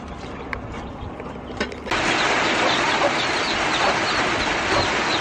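A few light clicks and knocks of firewood being pushed into a clay charcoal stove. About two seconds in this gives way suddenly to the steady, louder hiss and bubbling of a pot at a rolling boil, with many short high chirps from chickens.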